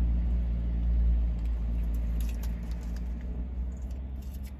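Low motor-vehicle engine rumble, loudest about a second in and then fading, heard from inside a parked car. A few faint clicks near the end.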